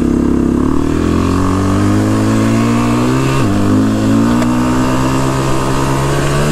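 Quad (ATV) engine accelerating hard through the gears: its pitch climbs steadily, drops sharply at an upshift about three and a half seconds in, then climbs again and drops at another shift at the end.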